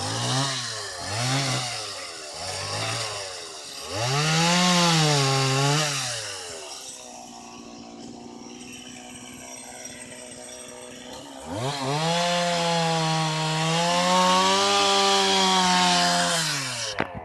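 Chainsaw engine revved in three quick blips, then revved longer, run at a low idle for about five seconds, and then held at high revs for about five seconds before dropping away near the end.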